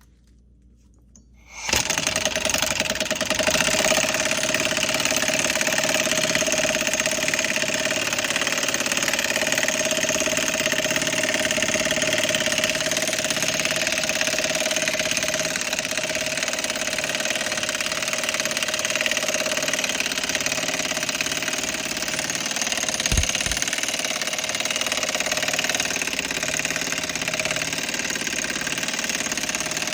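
Impact gun hammering steadily on a lug nut, starting about two seconds in, pulling a new wheel stud into the hub through a bearing-type stud installer tool. A short low thump about 23 seconds in.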